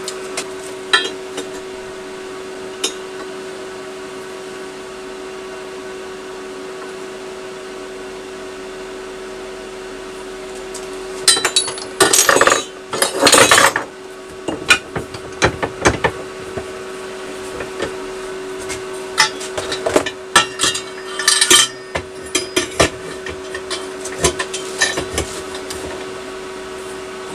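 Metal tools and exhaust parts clinking and knocking on a workbench, in irregular clusters from about a third of the way in, over a steady hum.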